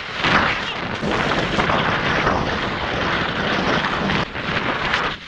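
Steady rushing noise of wind over the microphone and Head skis scraping across packed, tracked snow during a fast downhill run, easing briefly a little past four seconds in.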